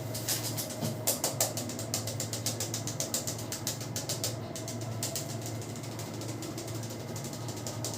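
Hair crackling as it is rubbed and pulled between a barber's fingers during a head massage: a fast, dense run of sharp snaps, roughly ten a second, with a few louder ones about a second in. A steady low hum lies underneath.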